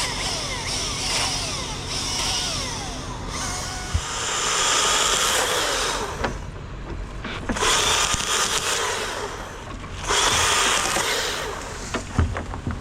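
Chainsaw cutting pecan wood, revving up to full throttle three times with short easings between the cuts.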